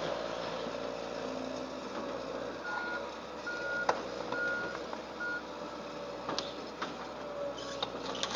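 Reversing alarm on heavy demolition equipment beeping four times near the middle, over the steady run of the machine's engine, with a few sharp knocks.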